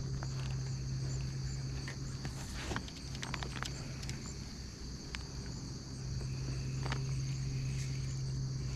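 Spinning reel being cranked in a low steady whir, which stops for a few seconds in the middle with a few sharp clicks and then resumes. Crickets or other insects chirp steadily throughout.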